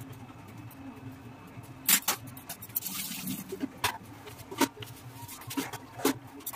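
Scattered sharp clicks and knocks of kitchen handling, the loudest about two seconds in, with a short hiss around the middle.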